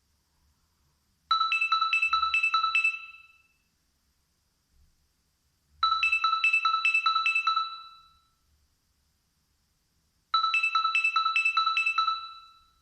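Nokia 6103 mobile phone playing a ringtone: a quick run of about six strikes of the same bell-like note, each run fading away. The run is repeated three times, about four and a half seconds apart.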